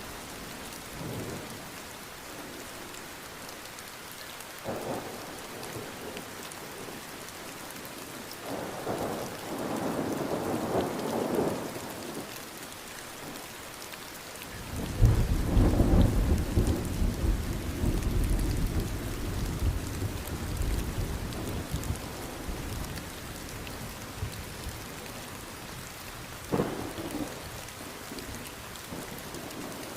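Light rain falling steadily, with a low rumble of thunder swelling and fading a few seconds in, then a louder, deeper roll of thunder starting about halfway through and dying away over several seconds. A brief sharp thud comes near the end.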